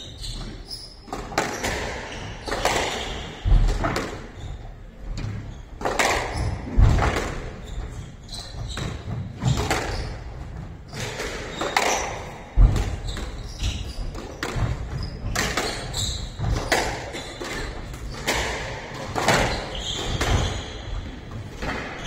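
Squash rally: the ball is struck hard by rackets and smacks off the court walls in sharp, irregularly spaced hits, each ringing briefly in the enclosed court.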